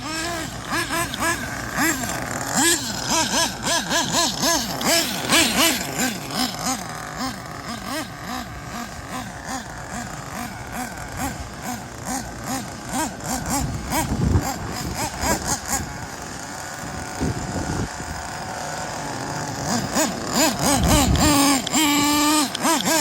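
Nitro glow engine of a Kyosho Inferno Neo ST 3.0 RC truggy revving up and down over and over as the car is driven, its pitch swinging several times a second, with a quick rising rev near the end.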